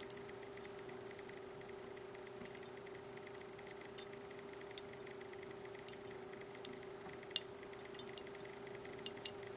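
Faint, scattered small metallic clicks and ticks from the parts of an Iwata HP-CS airbrush handled in the fingers as its trigger is seated in the body, the sharpest about seven seconds in, over a steady low hum.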